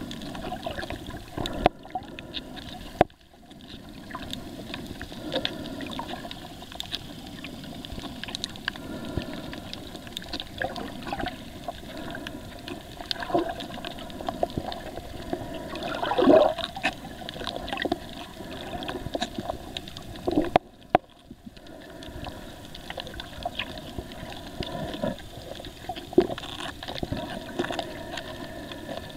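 Water noise picked up by a camera underwater, a steady wash dotted with many small clicks and crackles, with a louder gurgling surge about halfway through. The sound briefly drops out twice.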